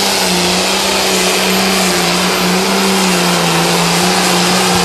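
A pulling tractor's engine running flat out under load during a pull, a loud, steady high-revving note that holds the same pitch throughout.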